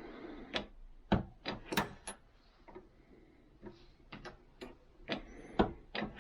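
Irregular series of about a dozen sharp metallic clicks and knocks from a reloading press and star-crimp die being worked while forming a star crimp on cartridge cases.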